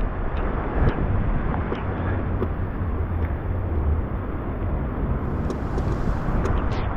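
Hurricane-force wind buffeting the action camera's microphone: a steady low rumble with a hiss over it and a few faint ticks.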